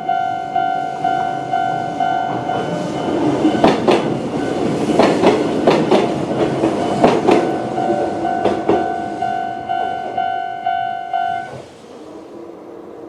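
Japanese level-crossing alarm of the old electronic type, ringing a pulsed tone about twice a second. A 7000-series electric train passes through, its wheels clacking in quick pairs over the rail joints. The alarm stops near the end.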